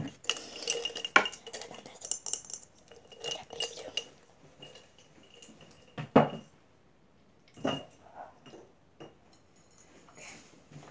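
Clicks and metallic clinks of a hollow metal rod and a plastic marker being handled and tapped with long acrylic nails, with a faint ringing from the metal. Several louder knocks stand out, the loudest at the very start and about six seconds in.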